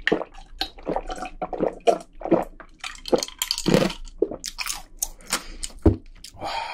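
A person gulping a fizzy dark soft drink in a run of short, uneven swallows, with wet liquid and fizzing sounds close to the microphone.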